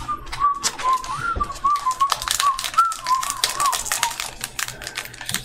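A person whistling a short wavering tune that stops about four seconds in, over a rapid run of clicks from typing on a keyboard.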